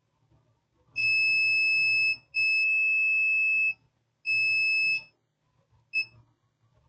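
Digital multimeter in diode mode beeping with a steady high tone, the sign of the probes bridging a very low-resistance path: three long beeps of about a second each, then a short blip near the end.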